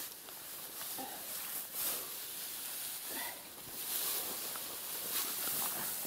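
Dry hay rustling in several swells as armfuls are gathered from the ground and tossed onto a haystack.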